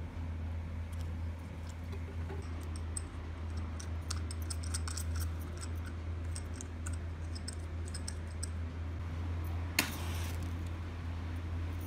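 Light clicks and clinks of fingers handling a small brass kerosene lamp, scattered through the first eight seconds or so. Near the end, a single short scratchy burst, a match being struck to light the lamp.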